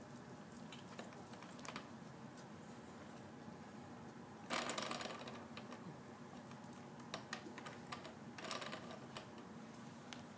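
Small plastic clicks and taps from a baby handling the toys of an activity-center seat, with a louder rattle about halfway through and another shorter one near the end.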